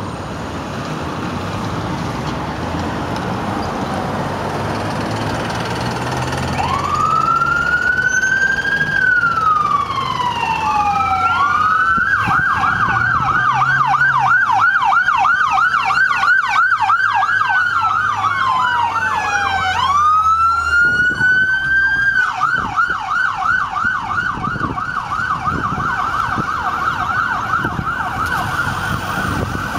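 Two-tone siren of a North West Ambulance Service HART response truck, starting about six seconds in with a rising wail, then switching back and forth between a slow wail and a fast yelp. Passing road traffic runs underneath.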